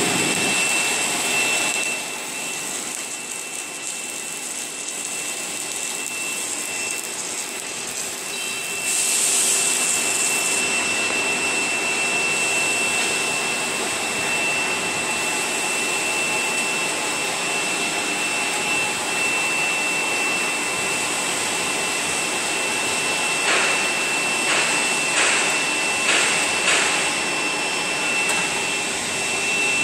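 Automatic submerged-arc welding machine running on a steel beam: a steady mechanical hiss and rush with a thin, steady high whine over it. A few light knocks come in near the end.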